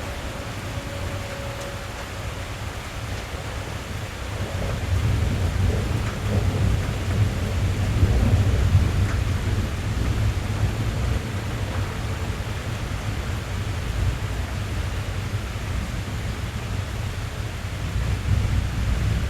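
Rain drumming on a car's roof and windows, heard from inside the cabin, with a long low roll of thunder that swells about four seconds in and rumbles on.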